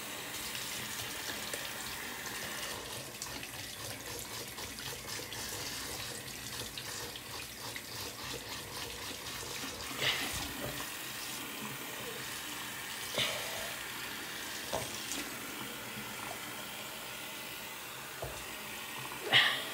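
Bathroom sink faucet running in a steady stream, with water splashing over a rubber shark hand puppet held under it. A few brief sharper noises break in, the loudest near the end.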